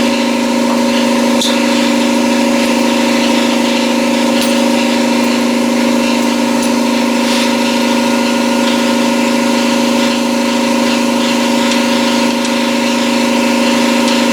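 A motor running steadily with an unchanging hum, with a few faint clicks and taps on top.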